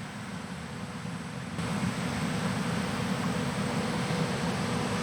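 Steady low rumble of an engine running, with an even hiss over it, stepping up a little about one and a half seconds in.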